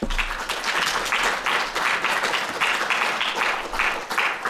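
Audience applauding: many hands clapping in a dense patter that starts at once and begins to die away near the end.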